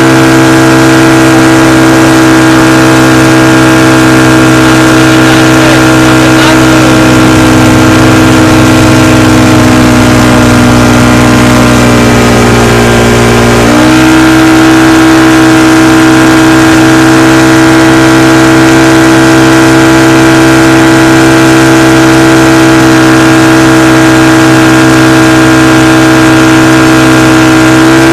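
Motorboat engine running loud and steady at speed. About a third of the way in its pitch sags for several seconds, then jumps back up just before the halfway point and holds.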